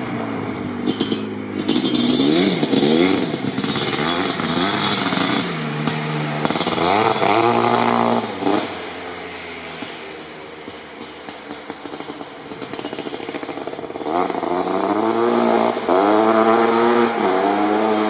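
Suzuki LT500R Quadzilla's 500cc single-cylinder two-stroke engine with an FMF Fatty pipe, revving up and falling back again and again as the quad is ridden hard. It fades quieter about halfway through, then grows loud again near the end. Short crackles run over the engine.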